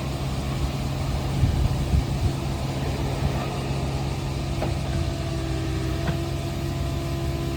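Komatsu PC45MR-5 mini excavator's diesel engine running steadily, with a few light knocks and a steady higher tone that comes in about halfway.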